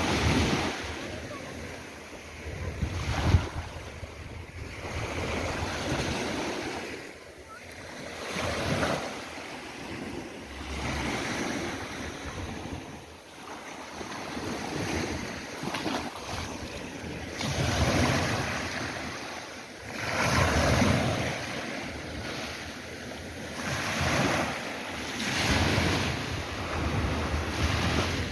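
Sea waves breaking and washing in, the surf swelling and falling back about every three seconds.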